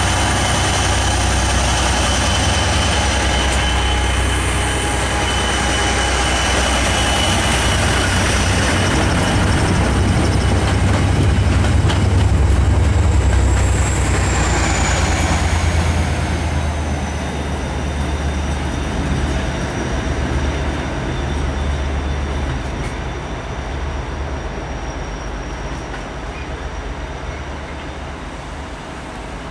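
A Class 57 diesel locomotive hauling a train of tank wagons, with a second diesel locomotive on the rear, runs past: a low engine drone and rolling wheels, with steady high squealing tones from the wheels. About 14 seconds in, the rear locomotive passes and a high tone drops in pitch. The sound then fades steadily as the train draws away.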